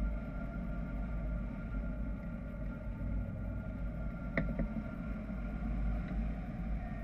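Wind rushing over the microphone of a camera mounted on a hang glider in flight: a steady low rumble, with one brief click about four and a half seconds in.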